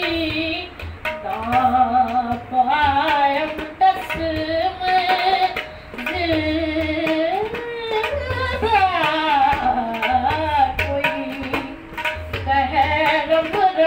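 A woman singing a Punjabi song in long, ornamented phrases with gliding pitch, over a low percussion beat that comes back about every one and a half to two seconds.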